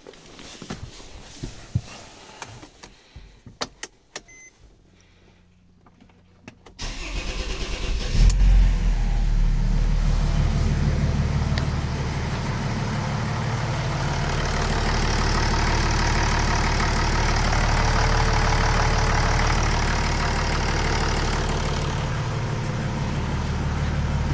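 Mercedes OM648 3.2-litre inline-six diesel, newly swapped into the car, on its first start: after a few light clicks and a short beep, the starter cranks about seven seconds in, the engine catches within a second or so and then idles steadily.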